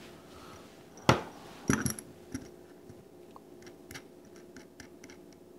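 Steel bolts with nuts threaded on them clinking against each other and knocking down onto a tabletop as they are stood upright: one sharp knock about a second in, a cluster of metallic clinks just after, then a few light ticks.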